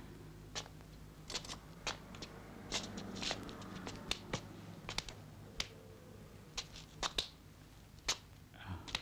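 Hands slapping and clasping as they are laid one on top of another, a string of short, sharp, irregular slaps and clicks over a low steady hum.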